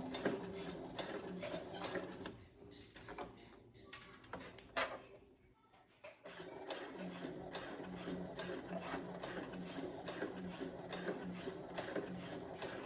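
Brother CS7000X computerized sewing machine stitching a seam with a rapid, even rhythm. It stops about two seconds in, a sharp click sounds in the pause, and it starts stitching again about six seconds in.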